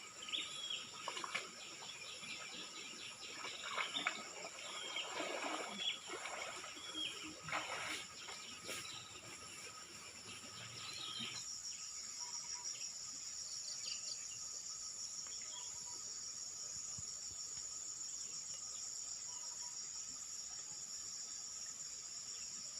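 Steady high-pitched insect chorus, joined in the first half by short, repeated bird chirps; about halfway through the birds stop and the insect drone grows louder.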